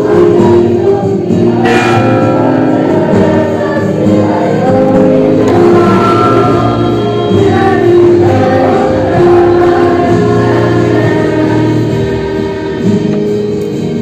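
Church choir and congregation singing a Christian hymn, many voices together holding long notes.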